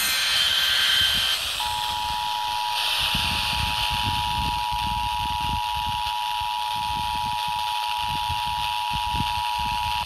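Emergency Alert System two-tone attention signal (853 and 960 Hz together) from a hand-held weather radio's speaker, starting about one and a half seconds in and holding one steady chord; it announces an EAS Required Monthly Test. Underneath are a steady hiss and an uneven low rumble.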